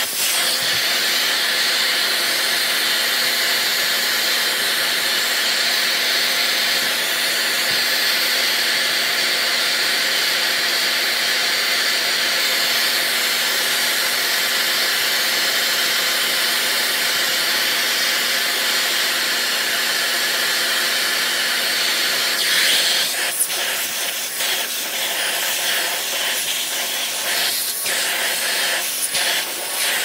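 Vacuum cleaner running steadily, a loud rush of air over a motor hum, as it suctions dust from a vacuum brush head. About 23 seconds in the airflow sound shifts, and short scrapes and taps follow.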